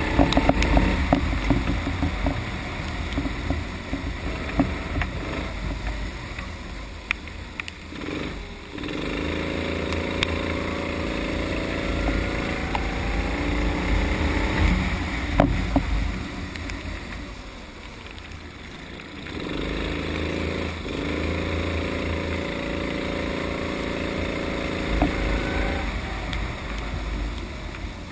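Sodi rental kart engine heard from onboard, revving up with a rising pitch about a third of the way in and again after two-thirds, held at high revs in between and dropping back when the throttle is lifted. Under it is a low fluttering rumble of wind on the microphone, and there are a few sharp clicks.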